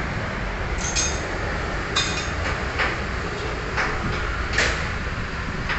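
Short metallic clicks and knocks of parts being handled and fitted during a fuel pump assembly job, about five in all, two of them with a brief ring. A steady background hum runs underneath.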